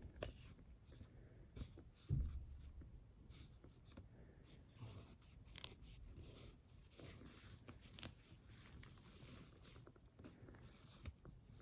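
Faint handling noises at a small table: scattered soft clicks and rustles, with one louder knock about two seconds in.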